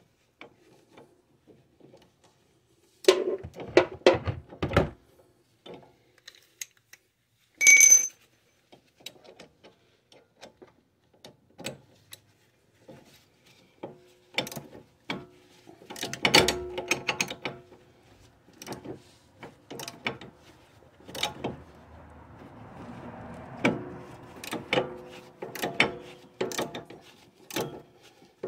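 Ratcheting wrench clicking in short irregular runs while loosening a suspension bolt, with a sharp ringing metal clink about eight seconds in.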